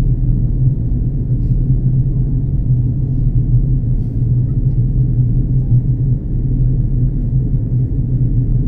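Steady low cabin drone inside an Airbus A330 airliner during its descent before landing, the engines and airflow making an even rumble with a strong low hum.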